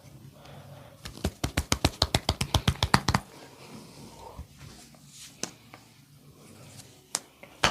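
Percussive massage strokes: hands slapping or chopping rapidly on the body, about nine quick strikes a second for two seconds. Quieter rubbing follows, then a couple of single slaps near the end.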